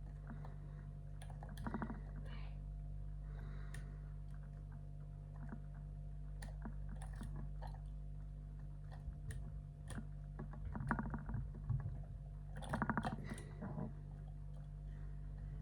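Lock pick and tension wrench working the pins of an Iseo pin-tumbler slam lock: scattered small metallic clicks and scrapes, with a few quick rattling runs of clicks, the busiest near the end.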